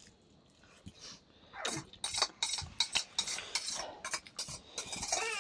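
A spoon clinking and scraping against a stainless steel bowl while eating, an irregular run of short sharp clicks that starts after a near-silent second and a half.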